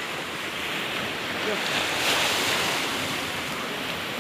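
Surf washing on the shore with wind buffeting the microphone, a steady rushing that swells briefly about two seconds in.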